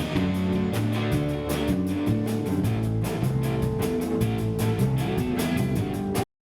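Rock band playing, with guitar and drum kit over a steady beat; the music cuts off abruptly near the end.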